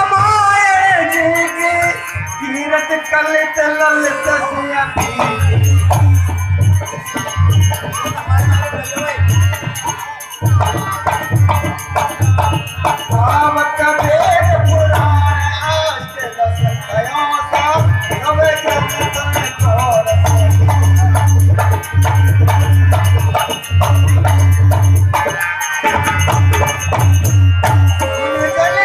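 Harmonium with a male voice singing into a microphone, amplified over loudspeakers, with shaken rattling percussion keeping time.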